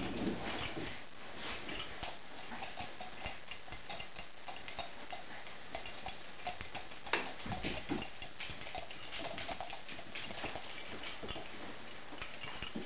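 Metal dog tags jingling and clicking against the floor as a short-legged old Pekingese moves about: light, irregular ticks and jingles, a few slightly louder taps partway through.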